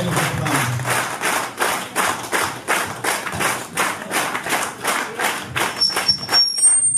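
Audience clapping in unison, a steady rhythm of about three claps a second. Near the end, high-pitched steady whistling tones come in over the clapping.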